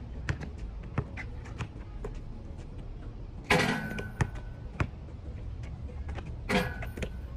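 Basketball play on an outdoor court: the ball bouncing on concrete and shoes scuffing in a string of short, irregular knocks. Two louder impacts with a brief ringing tone come about three and a half and six and a half seconds in, over a low steady background rumble.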